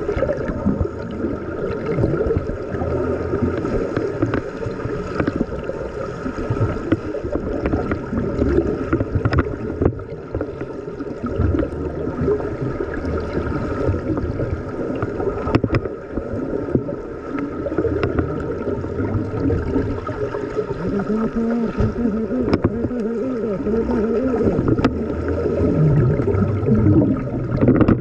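Muffled underwater noise of swimmers kicking with fins and splashing at the surface of a pool, heard from below the water, with scattered sharp clicks.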